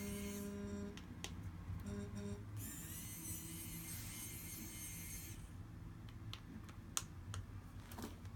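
Faint background music, with a few sharp small clicks. The loudest click comes about seven seconds in.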